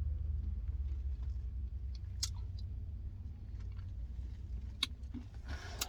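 Someone quietly chewing a mouthful of Blizzard ice cream with candy pieces, over the steady low rumble of a car's engine, with a few sharp clicks about 2 and 5 seconds in.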